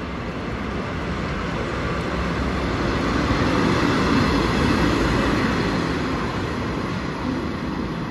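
Red diesel locomotive passing close by at a station, its engine and wheels growing louder to a peak about halfway and then fading as it moves away.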